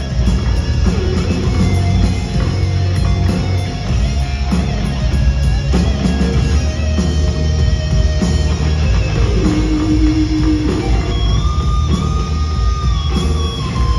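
Hard rock band playing live with electric guitars, bass and drums in an instrumental passage. In the second half a lead guitar holds long notes and bends them.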